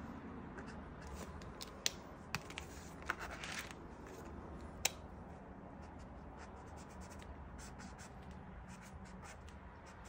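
Acrylic paint marker tips scratching and rubbing across a canvas panel in short strokes. In the first half, several sharp clicks and taps as one marker is put down and another picked up.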